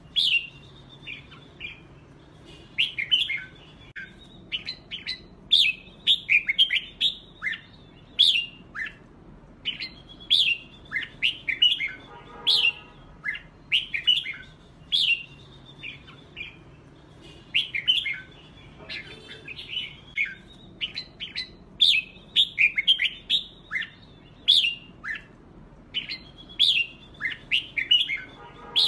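Red-whiskered bulbuls singing against each other: short whistled phrases that sweep up and down in pitch, one after another with brief pauses between.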